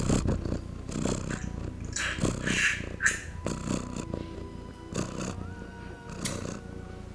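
A person lapping and slurping milk from a small bowl like a cat: a run of short wet slurps in the first three seconds and a couple more later, over faint background music with steady held notes.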